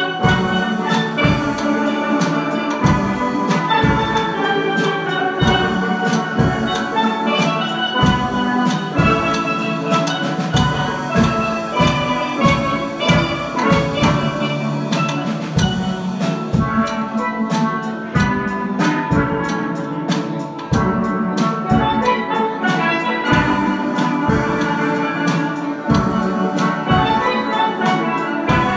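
Steel band playing: steelpans sounding a busy run of ringing notes over a steady drum beat.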